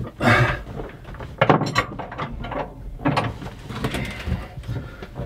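Irregular knocks, scrapes and clatter of hand work inside a cramped boat locker, as hands and tools move against the fittings and the locker sides.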